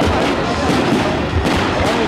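Loud music with a melody, mixed with the low thuds and sharp bangs of aerial fireworks bursting.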